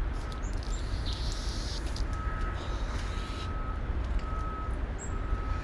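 Street ambience: a steady low traffic rumble with a vehicle's reversing alarm beeping at one pitch in short pulses about once a second. A soft rustling hiss comes in about a second in and lasts a couple of seconds.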